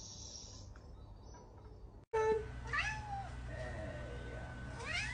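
A cat meowing a few short times, starting about two seconds in, with one rising meow near the end.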